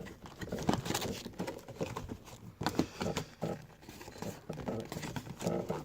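Trading-card hobby box and its wrapped packs being handled, with a run of light irregular rustles, taps and crinkles of cardboard and wrappers.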